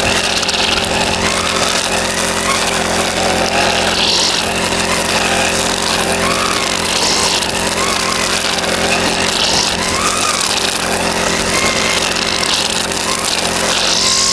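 Backpack brush cutter's engine running at a steady, fixed throttle while its spinning nylon line head cuts grass. A hissing swell comes about every two to three seconds as the line sweeps into the grass.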